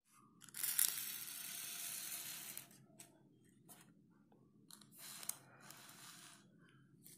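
Handling noise from a phone camera and cardboard matchboxes: a loud rustling scrape about half a second in lasting about two seconds, then a few light clicks and a shorter rustle about five seconds in.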